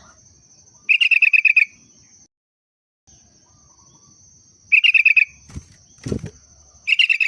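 Sooty-headed bulbul (kutilang) singing a yellow-vented bulbul's (trucukan) song: three short bursts of fast, bubbly repeated notes, about a second in, about five seconds in, and again at the end. A steady high tone runs behind it, and there are two sharp knocks a little after five seconds.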